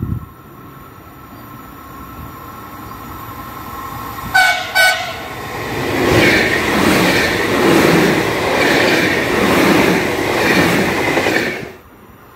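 Trenord double-deck electric commuter train approaching and sounding two short horn toots about four seconds in, then passing close at speed with a rhythmic clatter of wheels over the rail joints. The noise cuts off sharply as the last car clears, near the end.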